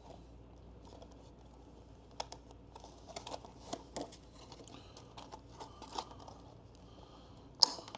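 Cardboard booster bundle box and its plastic wrapping being handled and opened: scattered light taps, clicks and crinkling, with one sharper crackle near the end.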